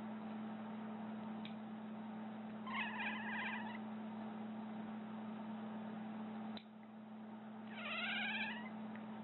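Domestic cat giving two quavering, warbling cries about a second long each, a few seconds apart: its odd reaction to the sound of nails being clipped.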